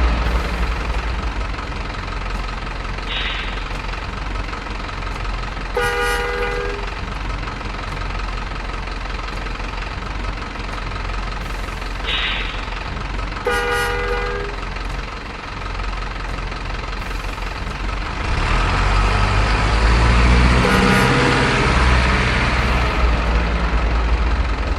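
Heavy truck traffic running steadily, with two horn blasts about a second long each, roughly seven seconds apart, each with a short hiss a little before it. Near the end an engine grows louder and rises in pitch as a truck pulls away.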